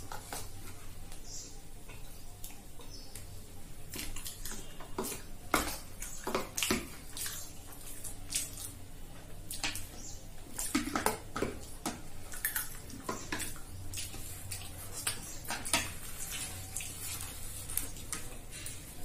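Eating sounds: metal spoons tapping and scraping against small ceramic bowls and plates, with wet mouth sounds of eating egg curry, in irregular clicks and short scrapes.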